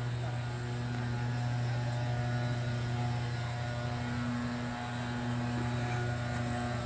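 A steady low hum at one unchanging pitch with a few overtones.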